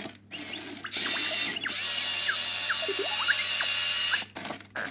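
Disney R2-D2 toy robot running: a loud mechanical whir of its motor and gears for about three seconds, with short rising and falling electronic chirps and whistles over it.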